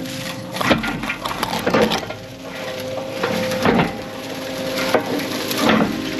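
Heavy equipment diesel engine running steadily while brush and wood are snapped and crushed. The cracking comes in four bursts spread across the stretch.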